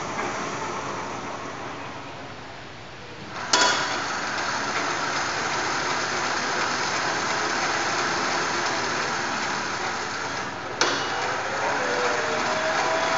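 Small portable DF-180A water-well drilling rig running under test, a steady machine noise. About three and a half seconds in it steps up louder with a click, and near the end another click is followed by a slowly rising whine.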